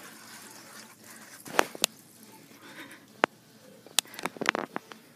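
Handling noise as a wafer is dipped into a paper bowl: a few sharp clicks and light taps, two together about one and a half seconds in, one near the middle, then a quick cluster near the end.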